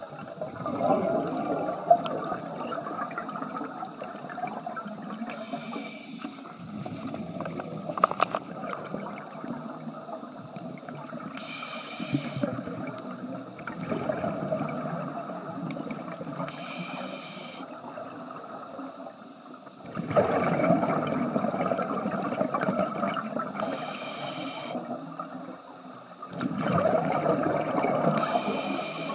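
Scuba diver breathing through a regulator underwater: four short hissing inhales, about every five or six seconds, alternating with louder bubbling exhalations as exhaust bubbles stream past.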